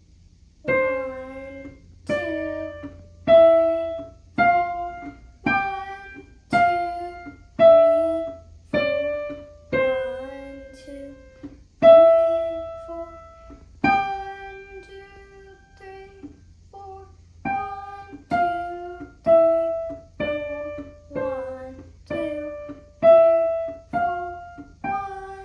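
Digital piano playing a slow, simple melody, one note struck about every second with a lower note sounding under most of them; a few notes near the middle are held longer.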